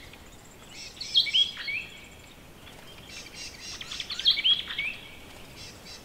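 Morning bird chorus: a phrase of clear, sliding whistled notes sounds about a second in and is repeated about four seconds in, over fainter chirping.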